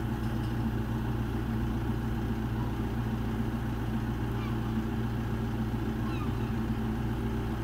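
Lifeboat launch tractor's diesel engine idling steadily, a low even drone. A few faint, short high calls sound over it.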